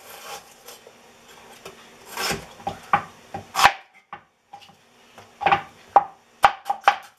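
Kitchen knife slicing an onion into julienne strips on a wooden cutting board: irregular cuts and scraping strokes, then several quick knocks of the blade on the board near the end.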